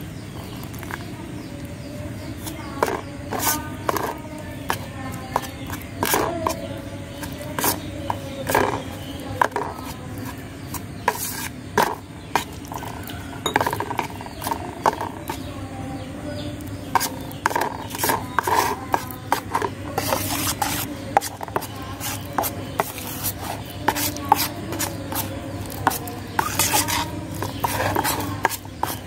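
A steel knife blade stirring white cement powder and water in a stainless steel plate: irregular scrapes and taps of the blade against the metal plate.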